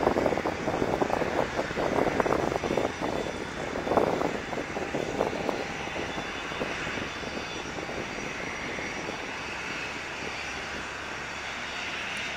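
Jet engines of a small twin-engine business jet rolling along the runway: a steady hissing whine over a low rumble.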